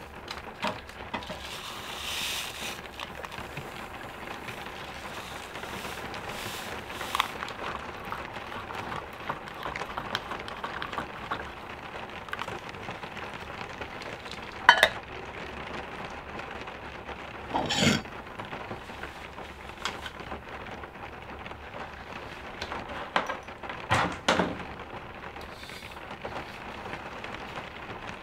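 Coffee-making handling sounds: a spoon stirring in a metal tumbler, with scattered clinks and knocks of cups and utensils over a steady low hiss. The loudest is a sharp knock about halfway through, and a few more come close together near the end.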